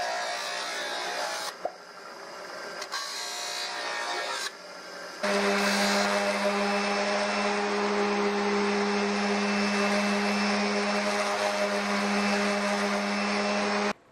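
A bench grinder's spinning wheel rubbing against the edge of an aluminium skin blank during deburring, in several short stretches. About five seconds in, a random orbital sander takes over, running steadily on the flat sheet with an even hum, and cuts off abruptly near the end.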